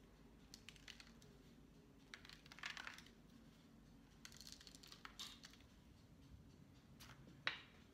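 Faint rustling and light clicks of fingers picking instant oat flakes and seeds out of a small dish and sprinkling them onto a loaf of dough, with one sharper click near the end over a faint steady hum.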